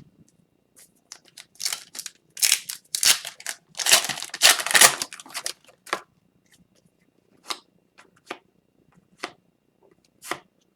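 Trading card packs being opened and handled: a few seconds of crinkling and tearing of the pack wrappers, then a few light single clicks of the cards being handled.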